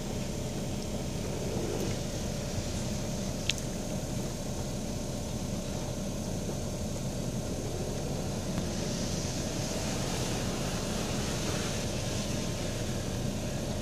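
Steady rumble and hiss of an automatic car wash heard from inside the car's cabin: the car's engine idling while water and soap spray on the body, the hiss swelling for a few seconds past the middle. A single sharp click about three and a half seconds in.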